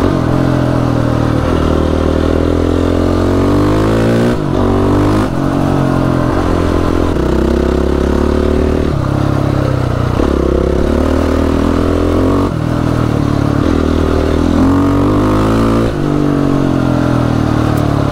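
Yamaha YFZ450R quad's single-cylinder four-stroke engine running hard, loud through an FMF exhaust with its baffle removed. Its pitch climbs and drops back several times, with short breaks as the revs change.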